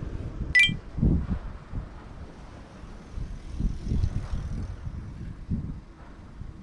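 A single bright metallic clink about half a second in, from metal parts or a tool being handled during work on the motorcycle's handlebar and mirror. It is followed by irregular low knocks and rumble.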